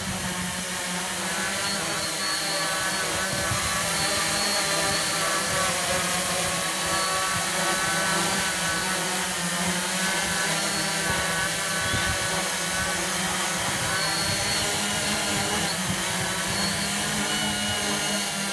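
JAF hexacopter's six brushless motors spinning 11x5-inch propellers, hovering in place under GPS position hold. A steady drone made of several close tones that waver slightly against each other as the motor speeds shift.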